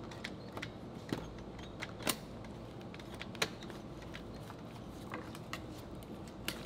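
Scattered sharp clicks and small knocks from an industrial sewing machine's mechanism being turned over by hand at the handwheel, over a low steady hum. The machine's bobbin carrier has just spun in the hook and knocked the machine out of time.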